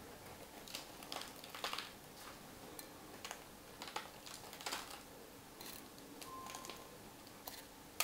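Faint, irregular light ticks of flaked almonds being sprinkled by hand onto a yeast-dough wreath and the parchment paper around it.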